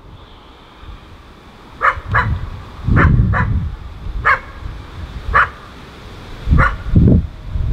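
A dog barking repeatedly, about eight short barks roughly a second apart, over louder low rumbling bursts.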